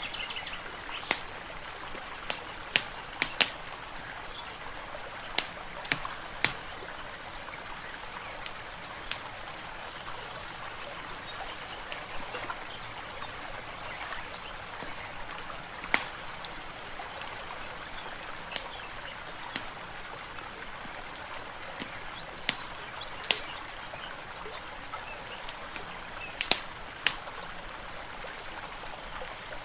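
Fire crackling, with irregular sharp pops, over a steady trickle of water.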